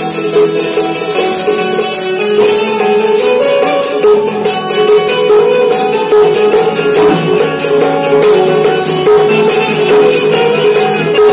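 Instrumental interlude of a ghazal: an Indian keyed banjo (bulbul tarang) plays the melody with keyboard backing over a steady jingling percussion beat.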